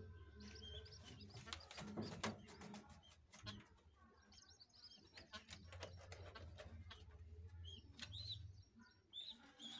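Faint high chirps and squeaks from birds in a pigeon loft, with scattered clicks and rustles and a low steady hum underneath.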